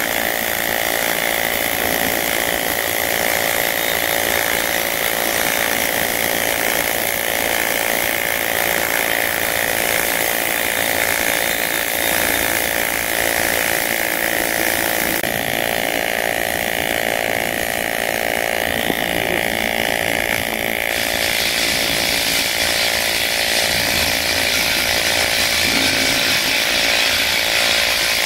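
Welding arc on aluminum, burning as a continuous steady buzz while a bead is laid down.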